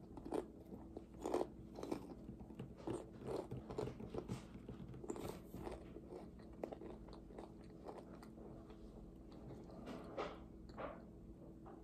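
A person chewing Pringles potato crisps: irregular crunches, frequent in the first half, then sparser and fainter, with a couple more about ten seconds in.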